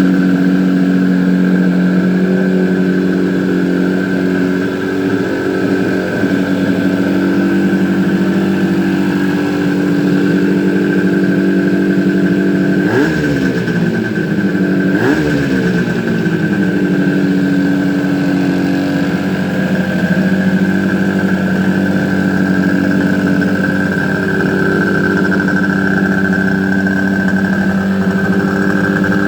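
Freshly rebuilt Suzuki GT250 two-stroke parallel-twin engine idling steadily, with two quick blips of the throttle about two seconds apart near the middle.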